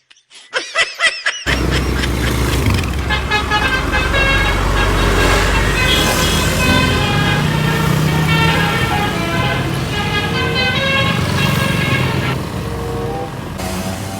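A telolet bus horn tooting a tune of short, quickly changing notes over a steady low rumble. It is preceded for about a second and a half by wobbling, swooping sound effects.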